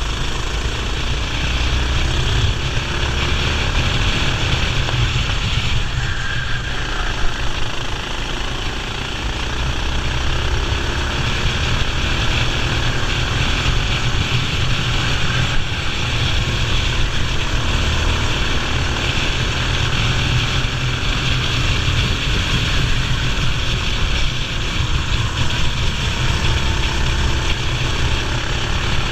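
Racing kart engine running hard under race load, its pitch rising and falling with the throttle, over a heavy rush of wind noise.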